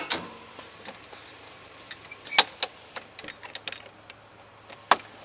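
Scattered sharp clicks and taps, with a quick run of them about three seconds in, over a faint steady low hum.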